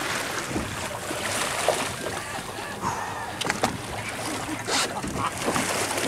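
Water sloshing and splashing against a boat's hull as a bull shark thrashes alongside, with a few short sharp splashes or knocks through it and wind on the microphone.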